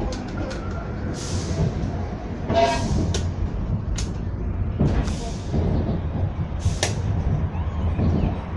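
Children's narrow-gauge railway train running, heard from aboard: a steady low rumble of wheels on track with sharp clicks and knocks scattered through. There is a brief pitched squeal about two and a half seconds in.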